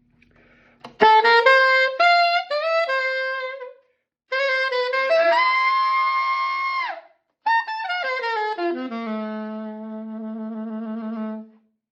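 Saxophone playing a short ornamented phrase: a quick rising run of notes, then a long high note played with growl that bends down at its end, then a falling run settling on a low note held with vibrato.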